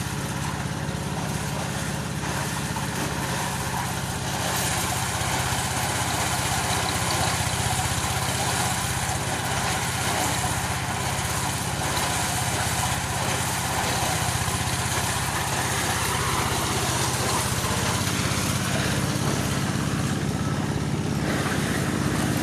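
Engine-driven corn thresher running steadily, its motor holding a constant hum under a dense rattling hiss.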